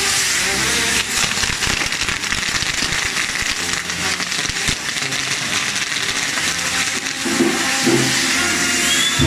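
Castillo firework tower burning: a steady hiss of its fountains and spinning wheels with dense crackling. Band music plays underneath and comes up louder about seven seconds in.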